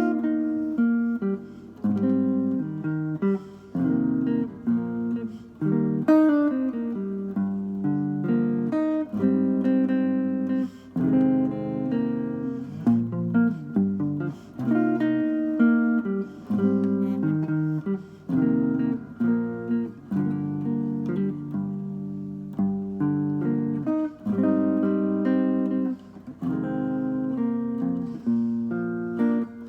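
Solo guitar playing a chord-melody arrangement of a ballad, with plucked chords and a melody line picked over them.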